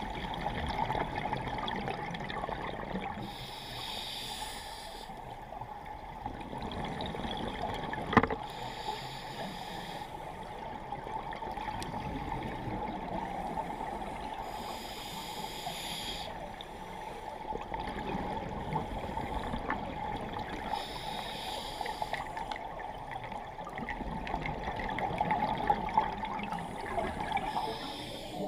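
Underwater scuba breathing through a regulator: a bubbly rush of exhaled air about every six seconds, over a steady hum, with one sharp click about eight seconds in.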